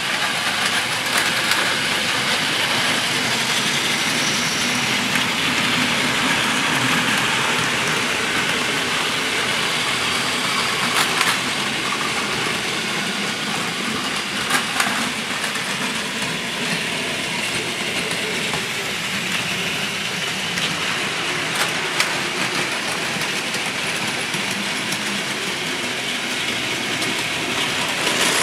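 Several battery-powered Plarail toy Shinkansen trains running together on plastic track: a steady whir of their small motors and wheels, with a few sharp clicks.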